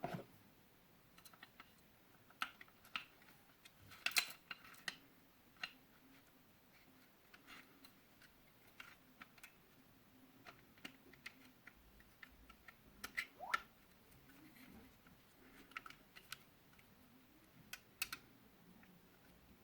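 Scattered light clicks and taps, irregularly spaced, from the parts of an Umarex Glock Gen 5 air pistol being handled while it is taken apart. A short rising squeak comes about thirteen seconds in.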